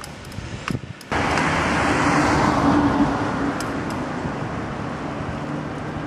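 Motor vehicle on a town street: an engine's steady hum with tyre and road noise. It starts abruptly about a second in and stays loud.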